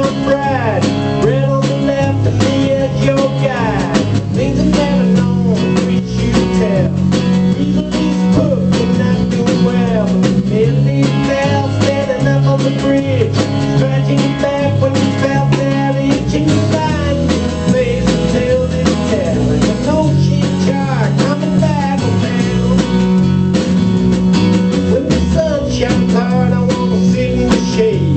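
Music: a guitar-led song with a bass line.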